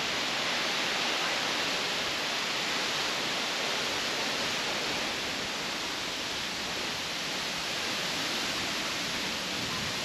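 Tall waterfall pouring in several streams into a pool: a steady rushing hiss of falling water.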